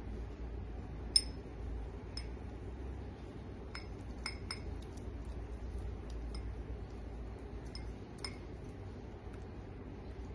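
A face-pack brush clinking against a small ceramic bowl as a face-pack paste is stirred: about ten light, ringing clinks at uneven intervals, the sharpest about a second in.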